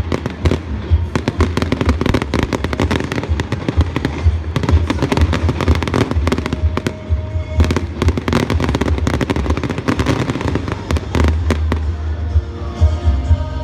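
A fireworks display: rapid, dense bangs and crackles of bursting shells, many per second, over music. The bangs thin out about twelve seconds in, leaving the music more to the fore.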